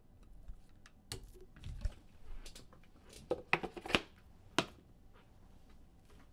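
Hands handling trading cards and plastic card holders on a table: scattered light clicks and taps, then a quick run of sharper clicks a little past the middle and one last click soon after.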